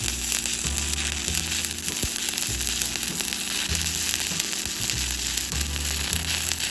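Stick (shielded metal arc) welding on steel plate: the arc's steady crackling sizzle as a bead is run.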